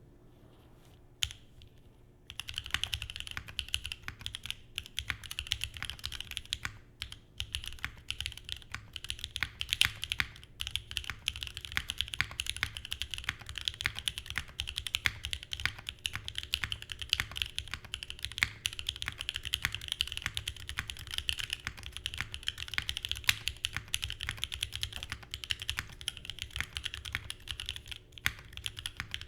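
Steady, continuous typing on a Geonworks Frog Mini mechanical keyboard with lubed and filmed Durock Lavender switches on an aluminium plate and GMK Amethyst keycaps. A single key click comes about a second in, and the typing proper starts about two seconds in.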